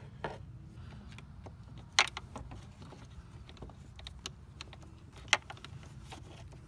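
Screwdriver working at the permanent metal clamp on the N80 EVAP purge valve's hose. There are a few sharp metal clicks, the loudest about two and five seconds in, with softer ticks and light handling noise between them.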